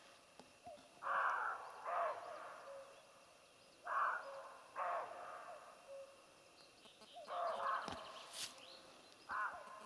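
Siberian roe deer bucks barking at each other: short hoarse barks, mostly in pairs about a second apart, repeating several times. Two rival bucks disputing territory.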